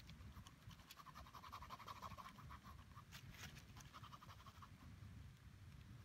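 Faint scratching of a Micron fineliner pen on drawing paper, in quick runs of short hatching strokes.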